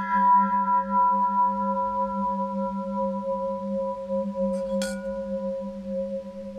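Sustained ringing, bell-like tones: a gently pulsing low note with clear higher tones above it, the highest of them fading away. Nearly five seconds in there is a short sharp tick, and a new higher tone rings on after it.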